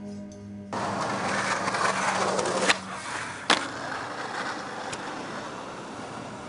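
Skateboard wheels rolling on concrete, starting about a second in, with two sharp board clacks under a second apart about halfway through and a lighter tick after.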